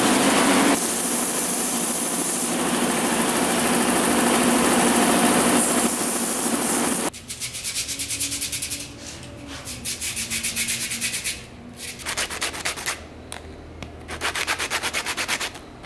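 Belt-and-disc sander running with a small 3D-printed PLA part held against it, a loud, steady grinding hiss. About seven seconds in it gives way abruptly to quieter, quick, repeated scratching strokes of a small part being rubbed by hand on sandpaper.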